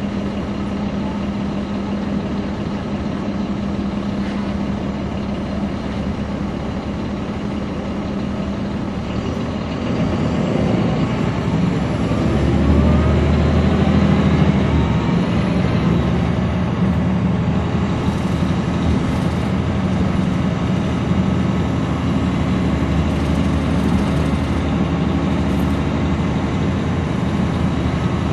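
Caterpillar C13 ACERT diesel engine of a NABI 416.15 transit bus, heard from on board, running steadily at idle. About ten seconds in the bus pulls away: the engine grows louder and rises in pitch as it accelerates, then runs on under load.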